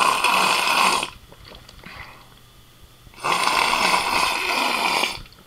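A person making two loud snore-like noises, a short one of about a second and then a longer one of nearly two seconds.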